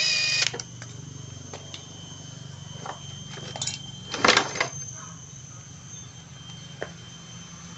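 Cordless impact wrench loosening cylinder-head bolts, running in short bursts: a half-second whirring run at the start and another brief burst about four seconds in, with a few faint clicks of metal parts in between.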